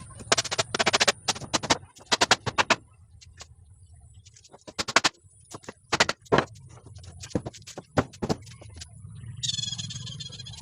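Hammering on wood: quick clusters of sharp knocks, as the parts of a wooden table frame are driven together. Near the end comes a brief high-pitched squeal.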